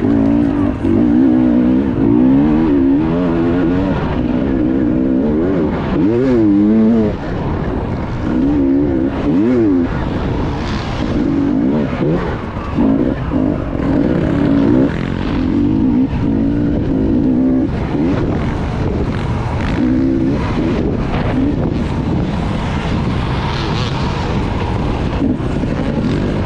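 Racing motorcycle engines running at high revs, their pitch rising and falling over and over through acceleration and gear changes.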